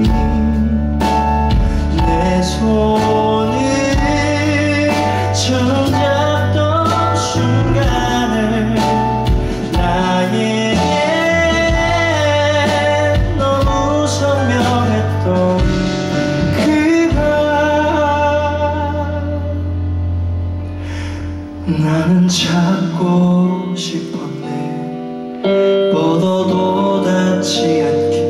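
A live band playing a song: a male voice singing over electric guitar, bass and drums. About 21 seconds in the bass and drums drop back to a sparser passage, and the full band comes back in about 25 seconds in.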